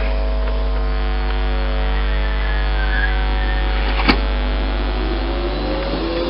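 Electric multiple-unit train humming steadily with several pitches while standing, with a single click about four seconds in. Near the end the pitch begins to rise into a climbing whine as the traction motors take power and the train pulls away.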